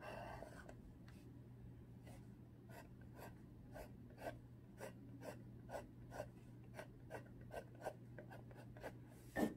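Pencil scratching short, quick strokes as feather details are drawn, about three strokes a second, with a louder rub near the end. A faint steady low hum runs underneath.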